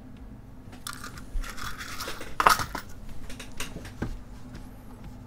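Rustling and clicking of small items being handled off-camera at the repair bench, a run of short scrapes and crinkles with the loudest rustle about two and a half seconds in, over a faint steady hum.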